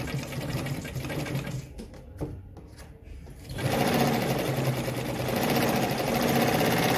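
Kohler WZ heavy-duty sewing machine sewing a short straight stitch. Softer, uneven sounds come first, then about three and a half seconds in the machine starts running fast and steady.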